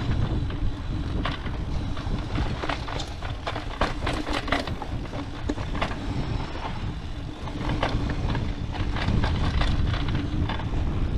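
Mountain bike ridden down a dirt trail: wind rumbling on the microphone over the noise of tyres on dirt, with frequent sharp clicks and rattles from the bike jolting over bumps.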